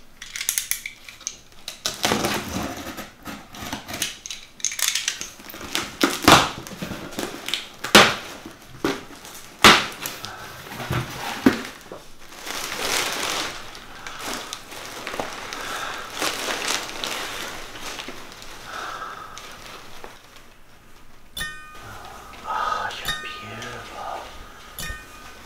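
A cardboard shipping box being opened: a box cutter slicing packing tape, with sharp rips and knocks of the tape and flaps, then a long rustle of crumpled packing paper and plastic being dug through. Near the end, steady ringing tones come in.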